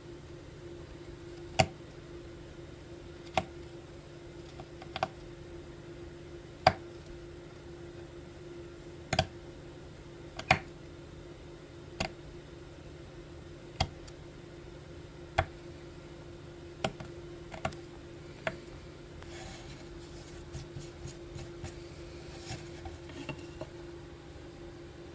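Sharp single clicks every second or two as the steel tip of a hand carving tool picks and scrapes at the grooves of a carved red oak plaque, cleaning up the dark oiled surface. Near the end come softer, quicker scuffs and ticks as the plaque is handled, all over a steady hum.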